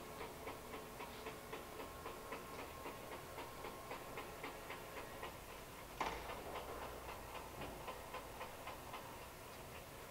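Vectrax CTL-618EVS toolroom lathe running with its power feed engaged for threading: a faint steady hum under a light, regular ticking of about three ticks a second. A sharp clack comes about six seconds in, and the ticking fades near the end.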